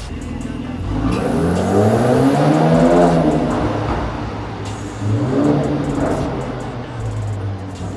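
Mercedes-AMG C43 engine through its AMG performance exhaust, revved: the note climbs for a couple of seconds, peaks about three seconds in and falls back, then rises again in a second, shorter rev about five seconds in.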